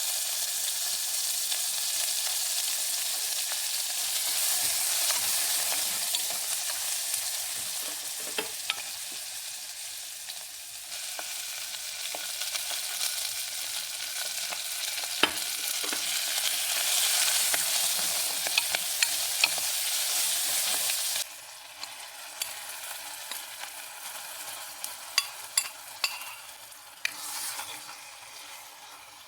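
Food frying in hot oil, a steady sizzle with occasional clicks. The sizzle cuts off suddenly about two-thirds of the way through, leaving quieter scattered clicks and taps.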